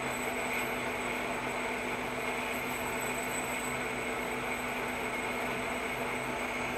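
1A616 metal lathe running at speed on newly replaced spindle bearings while a turning tool cuts a steel bar, throwing off chips: a steady, even machine whir with a constant hum.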